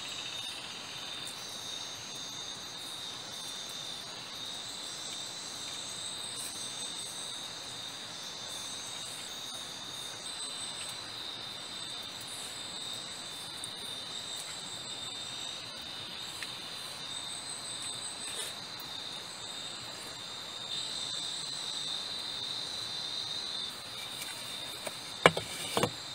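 Insect chorus: a steady high-pitched trill with other insects calling on and off higher up. A single sharp click about a second before the end.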